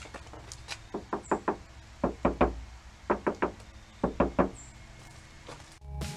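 Knuckles rapping on the outer skin of a BMW Z4's door, in quick groups of three and four knocks, as a test of how solid or hollow the door panel sounds.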